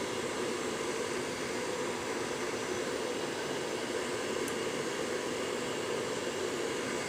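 Handheld electric air blower running steadily, giving an even rushing hiss, as it blows air over an opened vape mod during repair.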